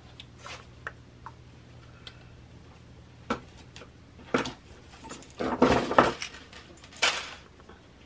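Hands working jewelry wire around a twig: scattered small clicks and light metallic clinks, with a busier cluster of rustling and clinking a little past the middle and one more near the end.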